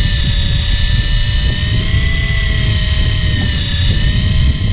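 A fishing boat's engine running steadily, a constant whine that wavers slightly in pitch over a heavy low rumble.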